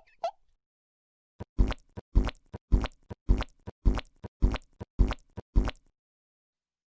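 Crunching bite-and-chew sound effect: about eight loud crunchy chomps, roughly two a second.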